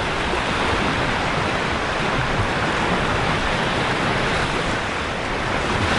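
Gulf surf washing onto a sandy beach: a steady, even hiss of small breaking waves.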